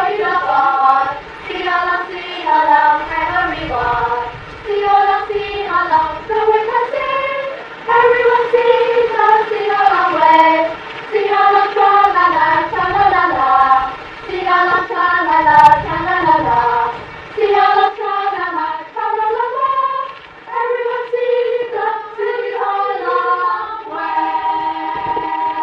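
A group of children singing a song together in unison, the melody moving phrase by phrase with brief breaks between phrases.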